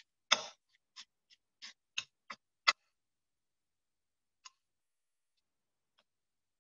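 A spoon clinking against a small glass bowl while stirring a thick chili-paste slurry: a quick run of about seven sharp taps in the first three seconds, then a couple of faint ones.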